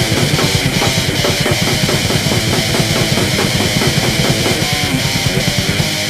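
Grindcore played loud: fast, dense drumming with heavy guitar. Just before the end the drumming stops and a held chord rings on.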